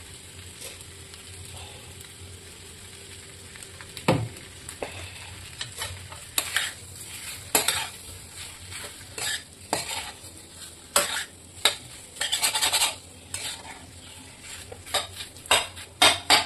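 Arbi (taro root) pieces frying in a kadhai with a faint steady sizzle, while a metal spatula scrapes and clinks against the pan. There is a single knock about four seconds in, and the scraping and clattering of the spatula and steel tongs come more and more often toward the end.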